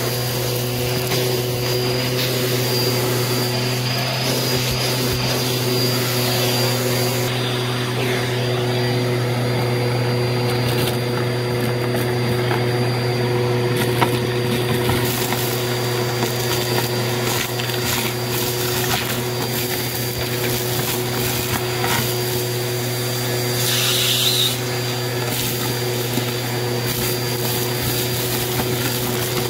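Bissell vacuum running steadily through its crevice tool, with a steady motor hum and high whine, while gritty debris crackles and rattles up the hose. A brief rise in hiss comes near the end.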